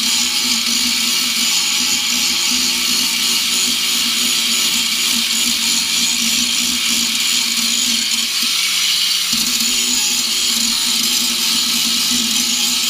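Electric angle grinder running steadily against 2 mm sheet steel, cutting or shaping repair patches, its motor tone briefly easing about eight seconds in.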